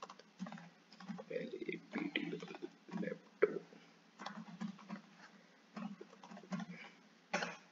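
Computer keyboard being typed on: irregular, light key clicks coming in small clusters as a word is typed out.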